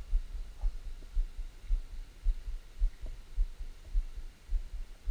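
Low, irregular thumps and rumble on the action camera's microphone, about two or three a second, over a faint steady hiss of flowing river.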